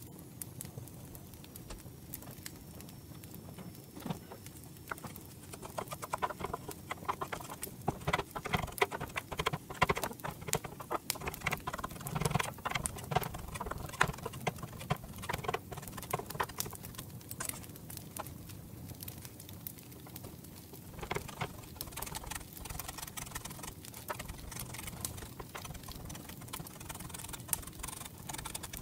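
Kitchen knife chopping fresh parsley on a wooden cutting board: quick, uneven taps of the blade on the board, coming in runs with short pauses.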